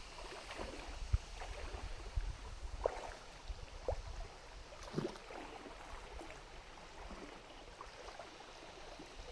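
Stream water running, with a few short splashes and gurgles in the first half as someone moves through the water.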